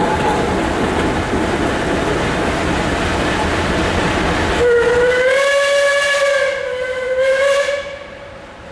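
Rumbling noise of a passing train, then about halfway in the Class B Climax geared steam locomotive's whistle blows one long, chord-like note that rises slightly at the start, falters briefly and stops near the end.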